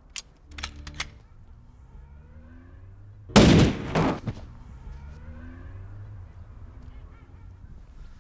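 Gunshots: a loud shot about three seconds in and a second one about half a second later, after a sharp click near the start.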